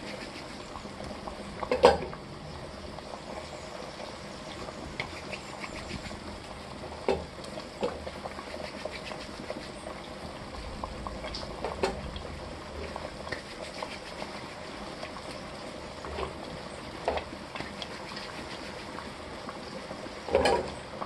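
Stew in an open pot bubbling at a steady boil, with a splash every few seconds as small flour dumplings are dropped into the liquid by hand; the loudest splash comes about two seconds in, and another near the end.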